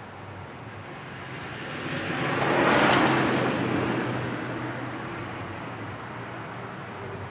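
A vehicle passing by, building to its loudest about three seconds in and then fading away, over a steady low hum.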